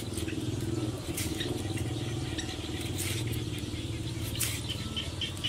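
A small knife cutting and peeling the skin off a green banana, a few short sharp cuts, over a steady low mechanical hum like a motor running.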